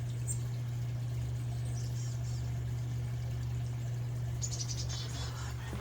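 Outdoor ambience: a steady low hum with scattered high bird chirps, and a rapid high trill about four and a half seconds in.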